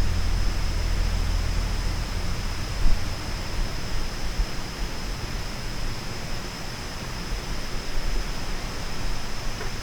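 Outdoor night ambience: a steady hiss with a constant high-pitched tone running through it. A low wind rumble fades out after the first few seconds, with a single faint bump about three seconds in.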